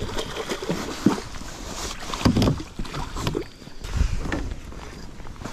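Irregular knocks, bumps and rustling as a landed pike is handled out of the landing net on a plastic fishing kayak, with wind buffeting the microphone.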